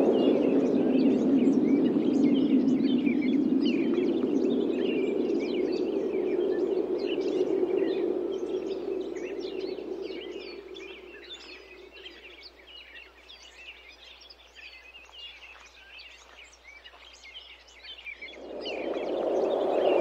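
Wind blowing in a long gust that dies away about halfway through and rises again near the end, with small birds chirping steadily throughout.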